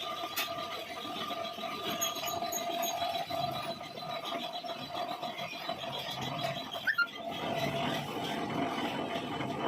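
Metal lathe running with a steady whine over a noisy hiss, and a brief click about seven seconds in.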